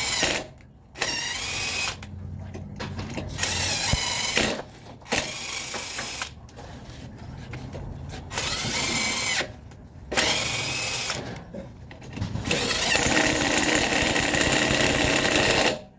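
A handheld power tool run in a series of bursts of one to three seconds with short pauses between them, its pitch rising and falling within each burst; the longest burst comes near the end.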